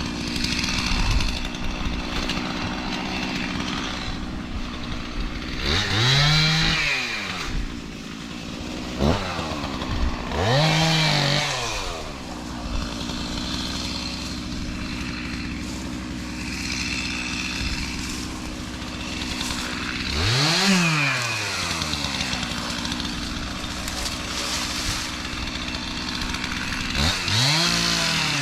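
Chainsaw idling and revving up and back down four times while cutting brush.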